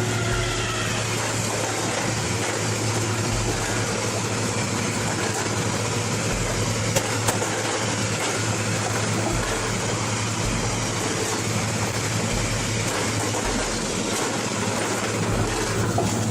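Heavy construction machinery running steadily: a constant low engine drone under a wide, even mechanical noise, with no change in pace.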